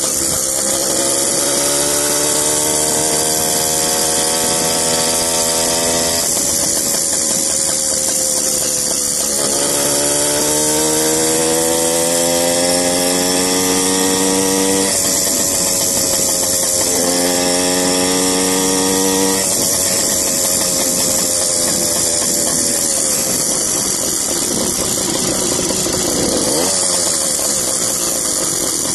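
100cc two-stroke bicycle engine kit running under way on a motorized bicycle. Its pitch climbs for several seconds and then drops back, three times, and after that runs more unevenly.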